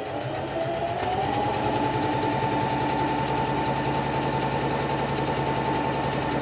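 Singer Classic 44S sewing machine stitching an automatic one-step buttonhole. Its motor whine rises over the first second or so as it speeds up under the pedal, then runs steadily with a fast, even needle rhythm.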